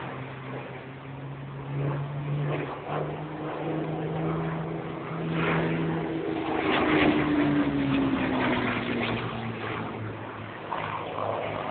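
Hawker Hurricane's Rolls-Royce Merlin V12 piston engine running as the fighter makes a low display pass, growing louder to a peak about seven seconds in, its pitch then dropping as it goes by.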